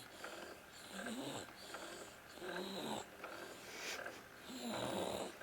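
Snoring: three snores roughly two seconds apart, the last one the loudest.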